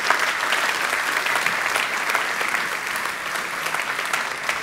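Audience applauding steadily in a hall, a dense patter of many hands clapping that slowly begins to fade near the end.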